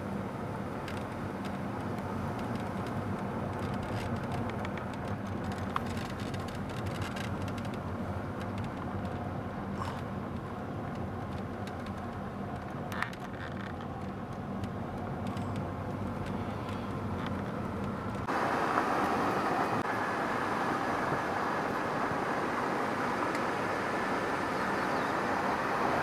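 Car driving, heard from inside the cabin: a steady low engine and tyre rumble on asphalt with a few faint clicks. About two-thirds of the way through the sound jumps abruptly to a louder, hissier rush of road and wind noise.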